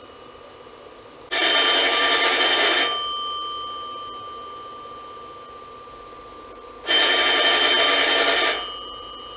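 Telephone bell ringing twice, each ring about a second and a half long with a rapid rattle, then fading out. The rings come about five and a half seconds apart, with a faint steady tone underneath.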